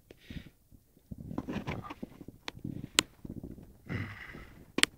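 Rustling handling noise with a few sharp clicks; the loudest click comes about three seconds in and two more come close together near the end.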